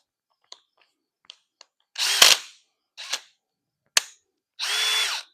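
Power drill triggered in short bursts, with sharp clicks and cracking between the runs and a steady high whine in the last burst near the end. The owner reckons the drill is giving out.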